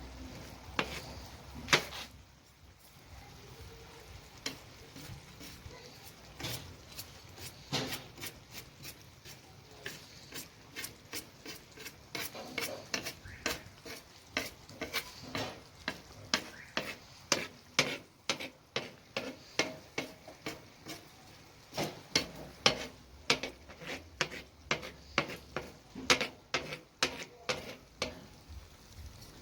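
A metal utensil stirring food in a kazan, knocking and scraping against the pot about twice a second, over the sizzle of frying.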